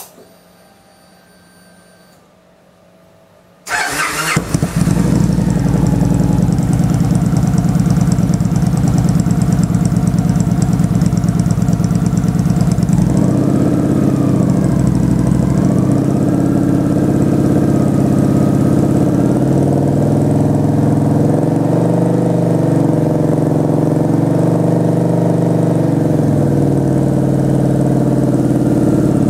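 Victory Vision V-twin started up through aftermarket Freedom Performance true-dual exhaust pipes. It is nearly quiet for the first few seconds, then the engine cranks and catches about four seconds in and settles into a steady idle, its engine speed shifting slightly a few times in the second half.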